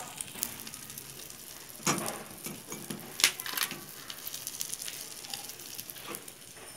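Cabbage omelette frying in olive oil in a pan over low heat: a steady sizzle with scattered small crackles, and two sharper clicks about two and three seconds in.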